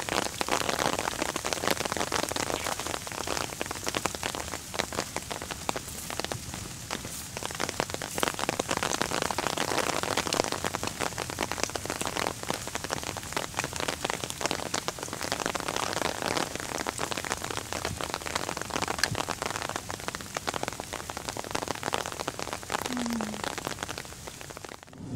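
Steady rain with dense, fine drop hits pattering close by.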